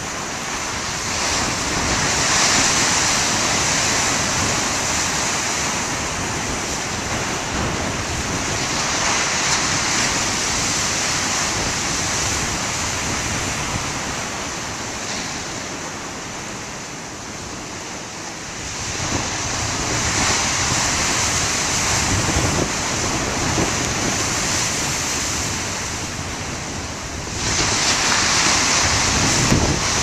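Heavy storm surf breaking and washing over a rocky shore, swelling and easing as the waves come in. It is strong through the first several seconds, dies down to a lull in the middle, builds again about nineteen seconds in, and surges suddenly near the end. Wind buffets the microphone.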